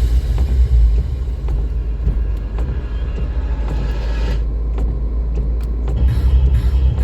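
Steady low rumble of a car on the road, with scattered sharp ticks; music comes in about six seconds in.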